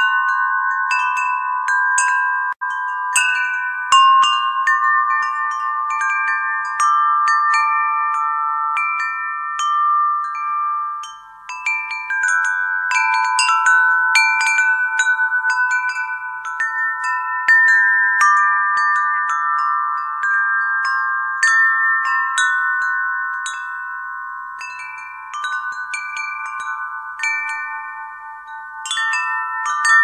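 Wind chimes ringing, struck irregularly and often, several sustained tones overlapping and ringing on after each strike, with a brief lull about eleven seconds in.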